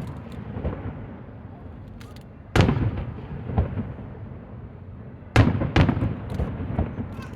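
Aerial firework shells bursting with loud booms, the two biggest about two and a half and five and a half seconds in. Each is followed by a few smaller reports and a rumble that dies away.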